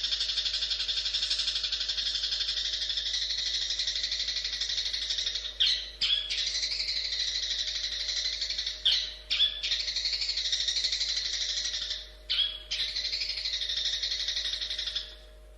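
Long-tailed shrike (cendet) singing a long, rapid chattering song. The song is broken by a few short pauses and stops just before the end.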